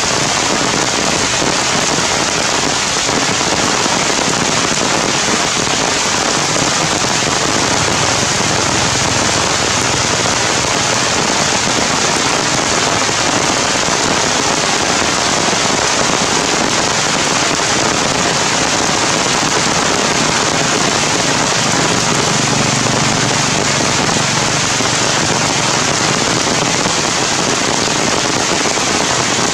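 Heavy rain falling steadily, an even, dense hiss.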